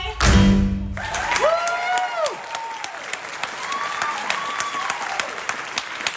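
A musical number's singing and accompaniment end on a held final chord that cuts off about a second in. Then the audience applauds, with a couple of rising-and-falling whooping cheers.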